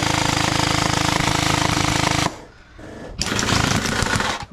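Gel blaster firing on full auto, its motor and gearbox cycling in a fast, even rattle that stops abruptly about two seconds in. About a second later comes a shorter stretch of loud noise.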